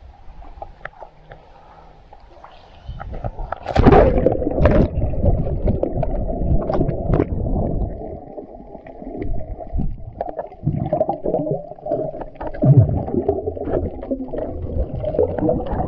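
Breath-hold dive heard on an action camera in the sea: a splash about four seconds in as it goes under. Then muffled underwater rushing and bubbling with scattered clicks against the housing.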